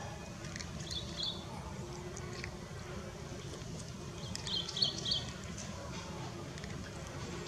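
Outdoor ambience: a steady low rumble with two short clusters of high chirps, about a second in and again just past the middle.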